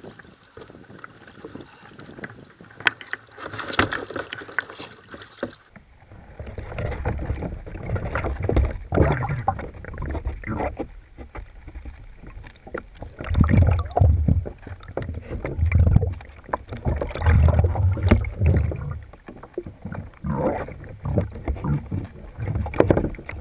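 Sea water and wind around a kayak for the first few seconds. Then comes the muffled sound of a submerged camera underwater: dull sloshing, with irregular low rumbles and thuds of moving water.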